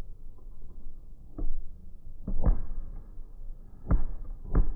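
Aerial firework shells bursting in a string of deep booms: one about a second and a half in, two close together past the two-second mark, and two more near the end.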